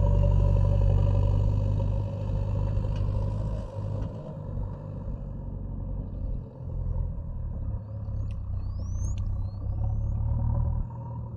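JCB 3DX backhoe loader's diesel engine running with a steady low hum. It is louder for the first two seconds and then eases to a lower level. Near the end a few short, high, rising whistles sound over it.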